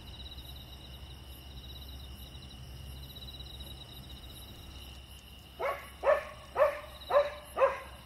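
A dog barks five times in quick succession, about two barks a second, starting a little past halfway through.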